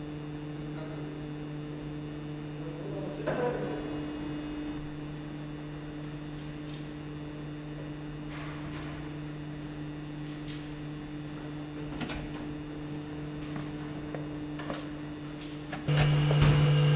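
Steady machine hum from the shake-table test rig, with scattered light knocks and clicks as the furniture is secured. About sixteen seconds in the hum suddenly becomes much louder and stays there.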